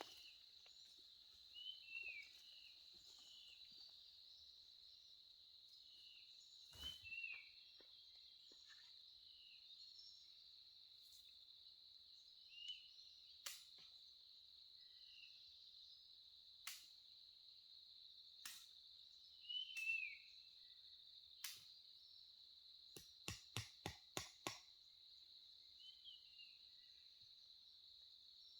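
Steady high-pitched drone of insects, with short falling bird chirps and scattered sharp knocks, including a quick run of knocks near the end.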